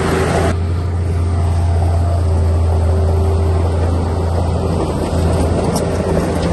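A heavy-equipment diesel engine running steadily with a deep, even drone. A hiss over it drops away abruptly about half a second in.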